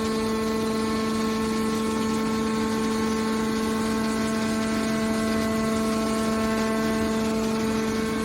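Hydraulic metal scrap baler running, its pump and motor giving a steady, even hum.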